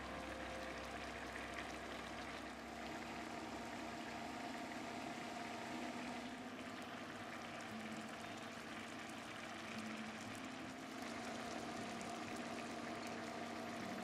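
Food cooking on the stove with a steady bubbling hiss, under soft background music with long held notes.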